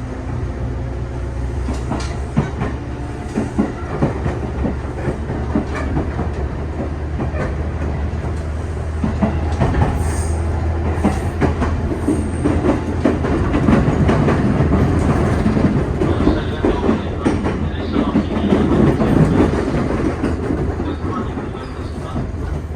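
415 series 1500 subseries electric train running, heard from on board: a steady low hum with the wheels clicking and clattering over the rail joints. It grows louder from about nine seconds in and eases near the end.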